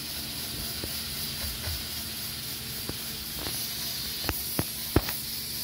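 Steam hissing steadily from a pot of beans cooking on the gas stove, with a few light knocks in the second half.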